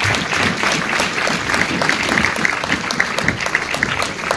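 Theatre audience applauding: dense, steady clapping from many hands.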